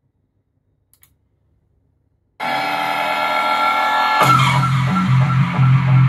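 Music played through a small 3D-printed Bluetooth boombox. A held chord starts suddenly a little over two seconds in, and about two seconds later a sweep brings in a pulsing bass beat.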